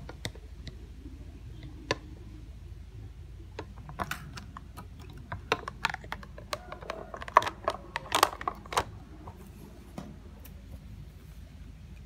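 Irregular clicks and taps of a plastic guitar pickguard and its wiring being handled and set back down onto a Stratocaster body, with two louder clacks about two-thirds of the way through.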